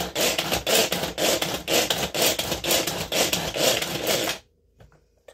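Pull-cord manual food chopper chopping onion: the cord is yanked again and again, about two to three pulls a second, each one a whirring rasp of spinning blades through the onion. The pulling stops suddenly about four seconds in, and a light tap follows near the end.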